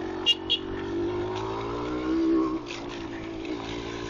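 Yamaha DT200R's two-stroke single-cylinder engine running on the move, its note rising as the throttle opens about two seconds in and falling back soon after. Two short, sharp ticks near the start stand out above it.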